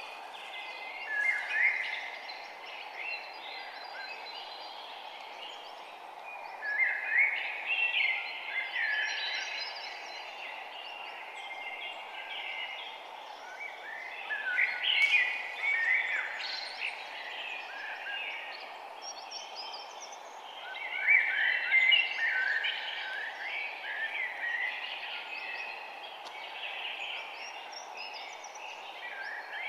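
Several birds chirping and singing in short, overlapping phrases, busier in spells every several seconds, over a steady background hiss.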